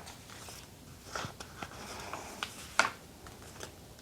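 Paper pages of a notebook insert being handled and turned: a few soft rustles and light taps, the loudest a little under three seconds in.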